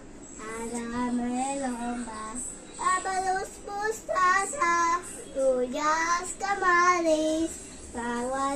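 A young girl singing unaccompanied, holding notes that slide up and down, phrase after phrase with short breaks for breath.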